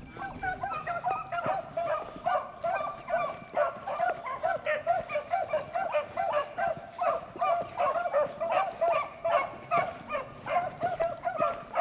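A pack of beagles baying as they run a rabbit's track. It is a steady string of short, overlapping barks, two or three a second.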